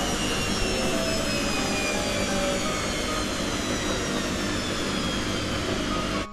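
Siemens washing machine spinning its drum fast, a loud rushing run with a motor whine that falls slowly and steadily in pitch as the spin slows toward the end of the program. It cuts off suddenly near the end.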